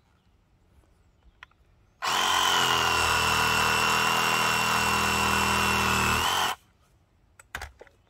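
Ryobi cordless reciprocating saw running at a steady speed with a high motor whine for about four and a half seconds, its blade down in the soil cutting through tree roots. It starts about two seconds in and cuts off suddenly, followed by a few light clicks.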